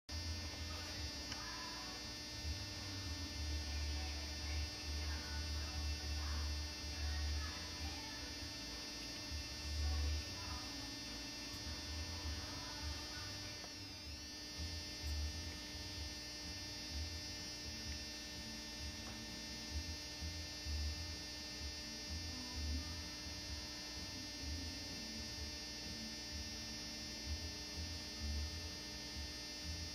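Steady electrical mains hum with a buzz of many even overtones, under a low rumble that swells and drops away irregularly.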